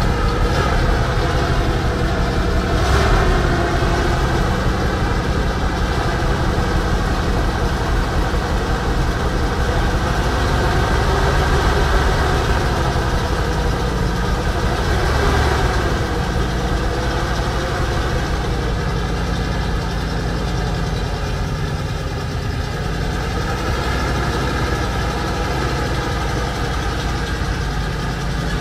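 Ural 375D army truck's ZIL V8 petrol engine running at a steady idle.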